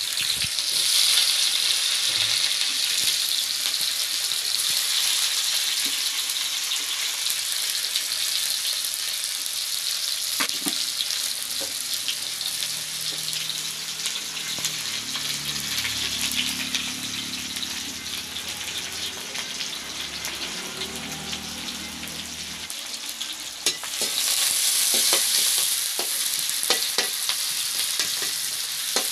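Sliced onions sizzling in hot oil in a wok, a steady high hiss that swells louder at the start and again near the end. Toward the end a spatula stirs the onions, adding scattered scraping clicks.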